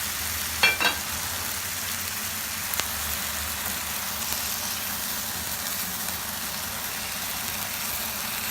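Pieces of rockling fish sizzling as they fry in hot oil, a steady hiss, with two sharp clinks just under a second in.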